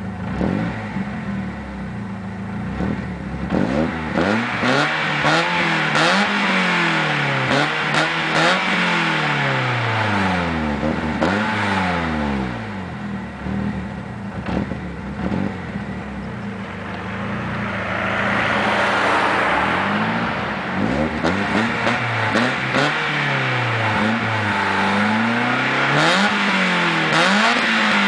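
BMW E30 318is's M42 1.8-litre four-cylinder, warm, revved repeatedly while standing, its note rising and falling in a series of blips with a longer, higher rev about two-thirds through. The exhaust note comes through a partly gutted rear muffler.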